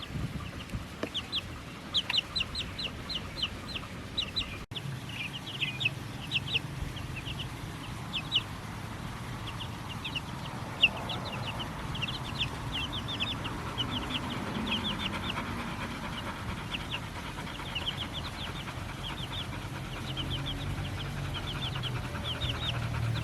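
Baby chicks peeping: a steady stream of short, high peeps, several a second, with a low steady hum underneath.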